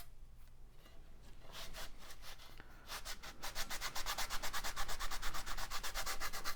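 Scrubbing the gunk off a computer power-supply plate: quick, even back-and-forth rubbing strokes, fainter at first and louder and faster from about halfway through.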